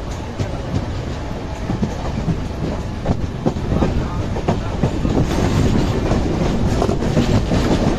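Chennai suburban EMU train running at speed, its wheels clattering irregularly over rail joints under a steady rumble, heard from the open doorway. The running noise grows louder about five seconds in.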